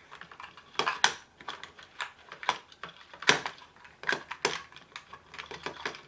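Toy handcuffs and their small keys being worked by hand at the locks: a string of irregular sharp clicks and rattles.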